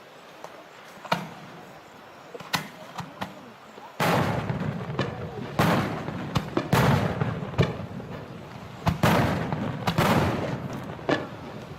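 Aerial fireworks bursting: a few separate bangs, then from about four seconds in a fast barrage of bursts over continuous crackling.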